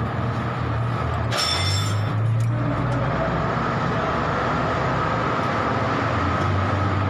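Steady low mechanical hum, with a brief high ringing sound about a second and a half in.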